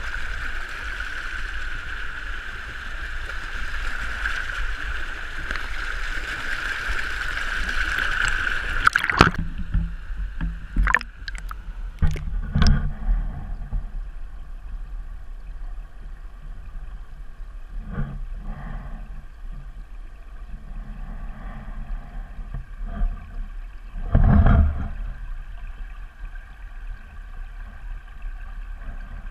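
Water rushing and splashing down the steps of a stone fish ladder, heard close up. About nine seconds in the sound goes underwater: muffled and dull, with a few knocks and bumps, the loudest about 24 seconds in.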